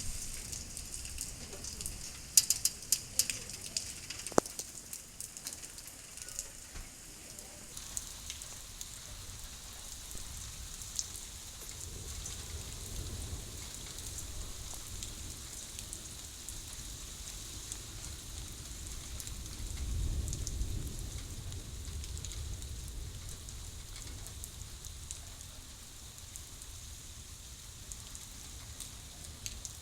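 Steady rain falling, an even hiss, with a cluster of sharp tapping drops in the first few seconds and a low rumble swelling briefly about two-thirds of the way through.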